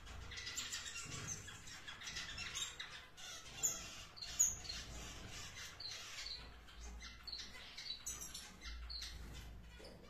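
Tricolored parrot finches calling: a busy run of short, high chirps, with two louder calls around the middle.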